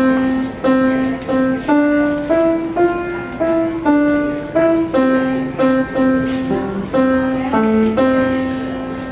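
Grand piano playing a simple melody one note at a time, ending on a long held note that fades away.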